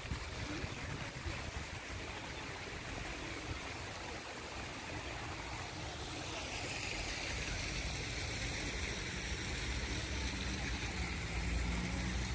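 Steady rush of water running into a pond, with wind rumbling on the microphone. A faint high whine joins about six seconds in.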